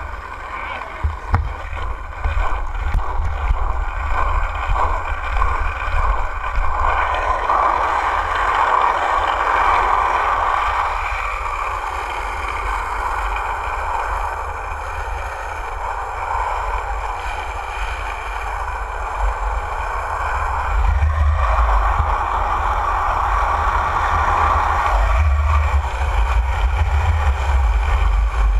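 Skateboard wheels rolling fast on asphalt, a steady rushing roar that swells twice, under heavy wind buffeting on the microphone.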